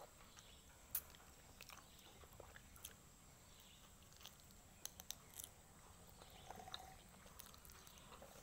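Faint chewing and mouth sounds of a person eating fried chicken by hand, with scattered short sharp clicks and smacks.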